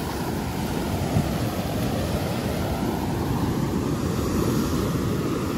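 Heavy ocean surf breaking and washing up the beach, a steady rushing noise, with wind rumbling on the microphone.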